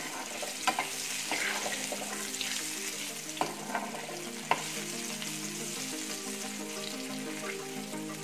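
Whole potatoes sizzling in hot oil in a frying pan, with a steel ladle clicking against the pan several times in the first half as they are turned.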